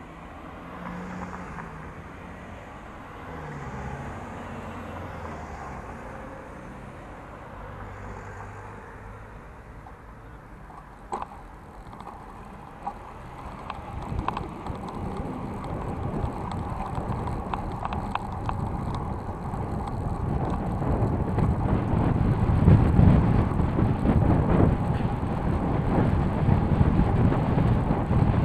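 City-bike ride heard through a handlebar-mounted action camera's microphone. First the bike stands at a junction with a low traffic hum and a single sharp click near the middle. Then it sets off, and the rumble and rattle of the bike and tyres on the cycle path grow steadily louder as it picks up speed.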